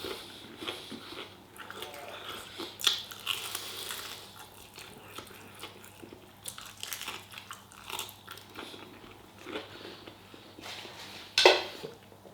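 A person chewing and biting chicken close to the microphone, with irregular small wet clicks and smacks of the mouth and one louder sharp sound near the end.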